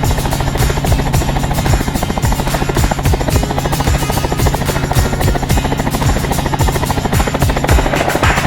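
Helicopter in flight: the rotor blades chop fast and evenly over the steady drone of the engine.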